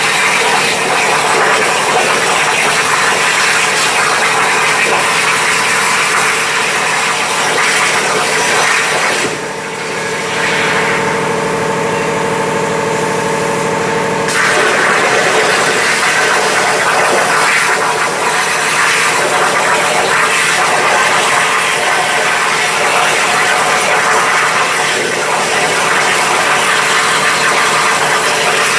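CNC plasma cutter's torch cutting sheet steel, a loud, steady hiss of the plasma arc. About nine seconds in, the hiss breaks off for some five seconds, leaving a steady hum with a few fixed tones, then cuts back in abruptly.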